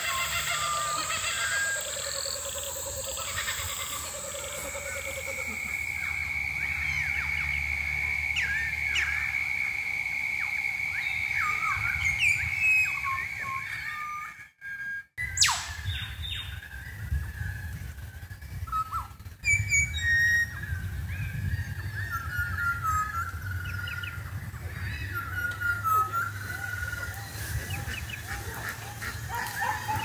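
Several wild birds singing together: overlapping chirps, whistles and short calls, with one long steady high tone held for several seconds in the first half. The sound cuts out briefly near the middle, and the chirping goes on after it.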